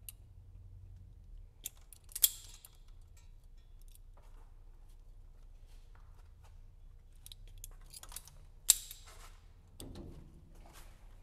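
Self-adjusting wire stripper clamping and stripping insulation off wires, snapping sharply twice, about six seconds apart, with a few lighter clicks of the tool being handled in between.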